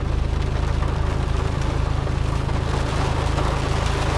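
Heavy rain beating on a car's roof and windshield, heard from inside the cabin, over the steady low rumble of the car idling in traffic.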